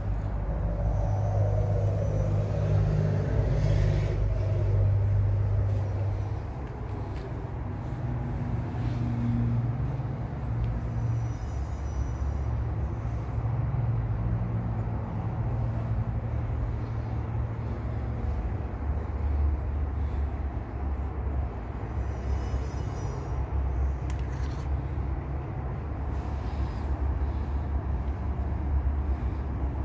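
Domestic cat purring steadily as it is stroked under the chin, a continuous low rumble.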